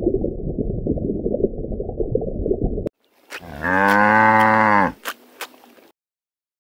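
A cow mooing once, a long, arched call about halfway through. Before it comes about three seconds of muffled, crackly rushing noise.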